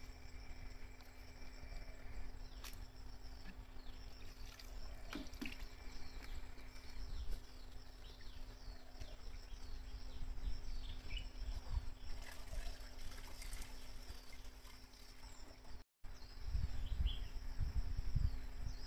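Outdoor ambience: many short, high, falling chirps over a low rumble of wind on the microphone. The sound drops out for an instant near the end, and the rumble is stronger after it.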